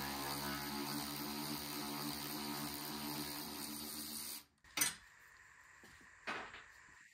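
A handheld power tool's motor runs at a steady pitch while backing out a headlight-assembly bolt, and cuts off suddenly about four seconds in. A couple of light clicks follow.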